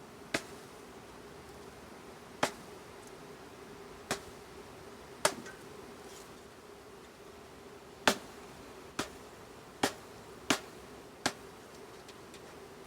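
Steady hum of swarming honeybees flying around a hive as a package of bees is shaken into it. About nine sharp clicks are scattered irregularly through it.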